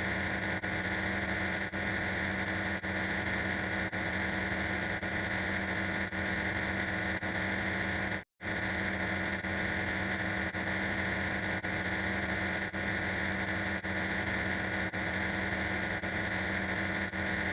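Harsh, dense static-like electronic noise with several steady buzzing tones in it, repeating in segments of about a second, each ending in a brief dip. It cuts out completely once, briefly, about eight seconds in.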